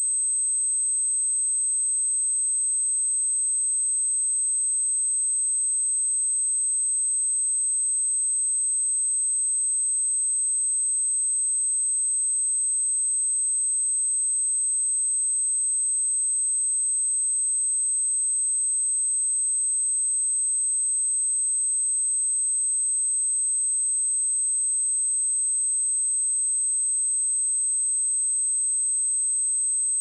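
A steady 8232 Hz sine-wave test tone: one high, pure, unbroken whistle at constant loudness.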